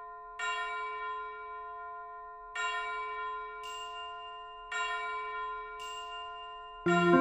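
Background music: slow, bell-like chime tones struck about every two seconds, each ringing out and fading, with a brighter high shimmer between strikes. Near the end, louder music with a moving melody comes in.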